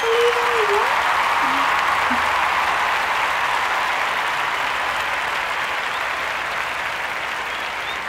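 A crowd applauding: a dense, steady spell of clapping that eases off slightly toward the end.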